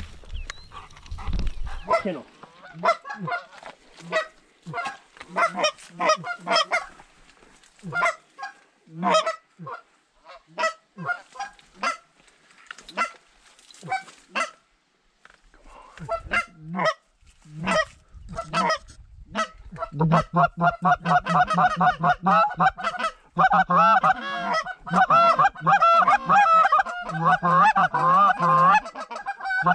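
Canada goose honks and clucks: scattered single calls at first, then from about twenty seconds in a rapid, loud, continuous run of calling.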